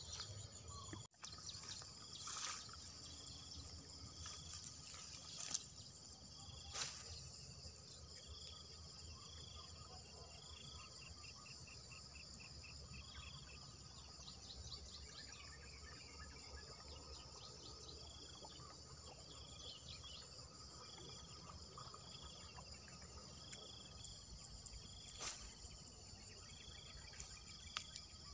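Insects chirping steadily in wet grassland, with one chirp repeating about once a second, and a few short bird trills. A handful of faint sharp clicks stand out from the chirping.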